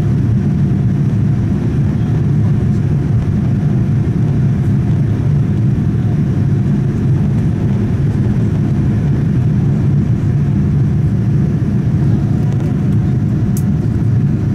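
Cabin noise of a Boeing 787-9 climbing after takeoff, heard at a window seat: an even, low rumble of its GEnx-1B engines and the airflow, with a faint steady tone above it.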